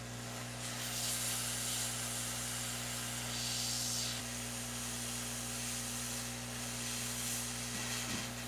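Hot-air rework station nozzle blowing a steady hiss of hot air, at about 400 °C and airflow 6.5, to melt the solder of a laptop DC power jack for removal. The hiss swells and eases a little, over a constant electrical hum.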